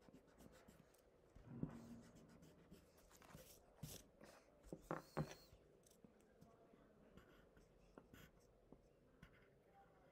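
Faint pencil scratching on paper and the sheet shifting under the hands, with louder scrapes about a second and a half in and again about five seconds in.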